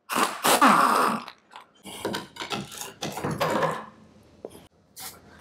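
Rear driveshaft of a pickup truck being worked free of the differential pinion flange and pulled down: a run of irregular metal clunks and scraping, with a few short knocks near the end.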